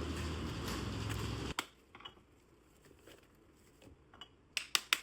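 A small kitchen appliance runs with a steady whir and low hum, then switches off abruptly about one and a half seconds in. Several sharp clicks and taps follow near the end.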